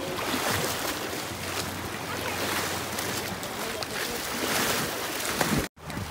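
Rushing, splashing water: a steady noise with small splashes through it, broken by a sudden brief dropout near the end.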